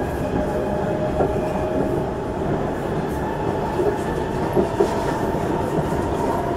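Singapore MRT East-West Line train running, heard from inside the carriage: a steady rumble of the wheels on the track with a faint steady whine and a few light clicks.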